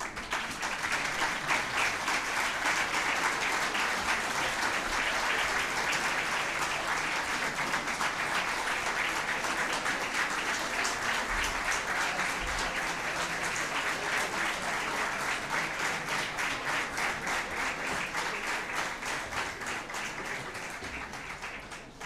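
Audience in a hall applauding steadily, a dense patter of many hands clapping that tapers off near the end.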